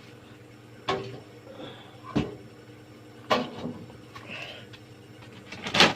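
Four separate light knocks and clunks, spread over a few seconds, as amplifier parts are handled and set aside.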